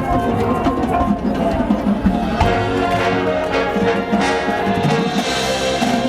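High school marching band playing, its brass section sounding sustained chords.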